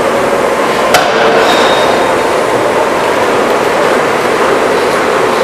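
Forging hammer striking a single heavy blow about a second in, over the steady loud din of the running machinery.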